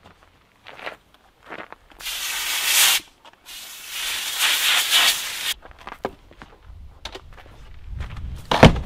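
Compressed-air blow gun blasting dust out of a tractor's air filter element: two hissing blasts, about a second and then about two seconds long. A sharp thump near the end.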